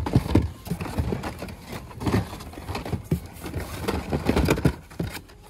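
Blister-packed Hot Wheels toy cars clattering and rustling against each other as a hand rummages through a cardboard box of them: a quick run of irregular plastic clacks and knocks, the loudest right at the start.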